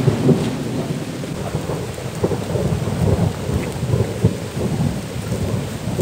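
Rainstorm: rain coming down with a continuous low rumble and no break.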